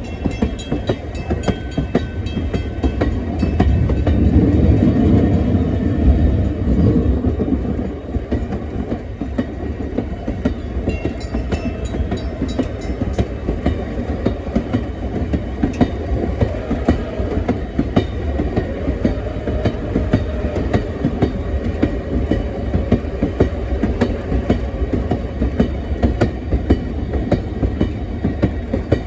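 Train rolling steadily along the track: a continuous low rumble with rapid, irregular clicks of the wheels over rail joints, swelling a little louder for a few seconds near the start.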